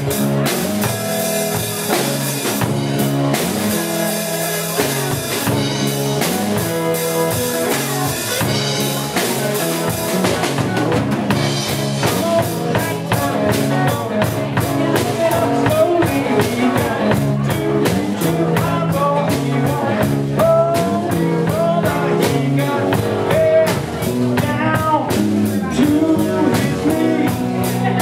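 Live rock band playing: drum kit, strummed acoustic guitar and electric guitar, with a steady beat that fills out with more low end about ten seconds in.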